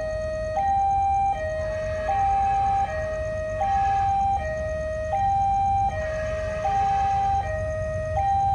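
Railway level-crossing warning alarm sounding a steady two-tone ding-dong, alternating evenly between a higher and a lower tone each held under a second. It signals an approaching train. A steady low rumble runs underneath.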